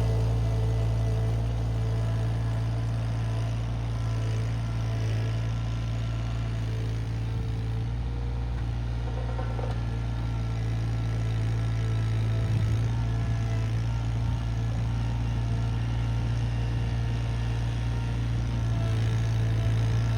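An engine running steadily at a constant speed, with a strong low hum that holds the same pitch throughout.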